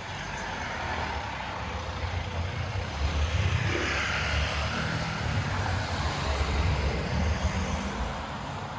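A motor vehicle driving past on the street: engine rumble and tyre noise build up, hold for a few seconds, then fade away.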